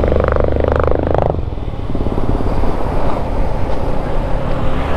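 Motorcycle engine heard from the rider's seat while riding, pulling hard for about a second and then easing off, leaving the engine running lower under wind and road noise.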